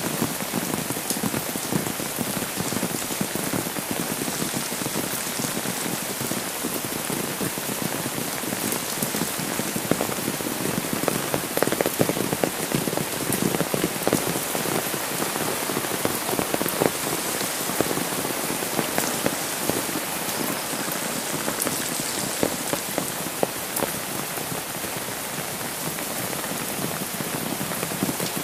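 Steady rain falling, with many close drops striking an umbrella overhead in sharp, scattered taps.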